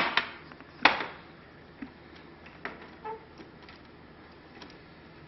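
Sharp clicks and knocks of plantation shutter pieces being worked into the frame, the loudest about a second in, followed by lighter scattered ticks.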